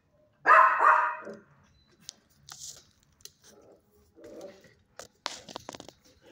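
Six-month-old puppy barking, a short run of quick barks about half a second in, followed by softer sounds and a quick rattle of clicks about five seconds in.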